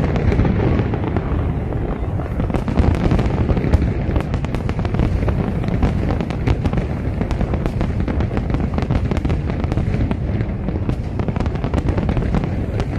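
Aerial fireworks display at full barrage: many shells bursting in quick succession, making a continuous low rumble of booms with dense crackling over it.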